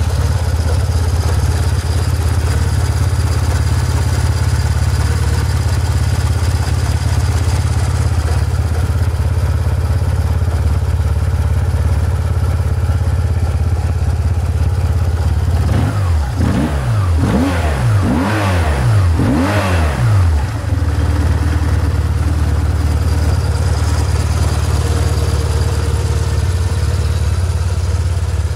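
BMW R1150R's air-cooled boxer twin idling steadily. A little past halfway comes a run of several quick throttle blips, the revs rising and falling each time before settling back to idle.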